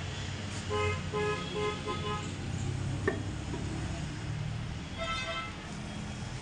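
A vehicle horn tooting in a quick run of short, evenly spaced blasts, then again briefly near the end, over a steady low rumble. A single sharp tap comes about three seconds in.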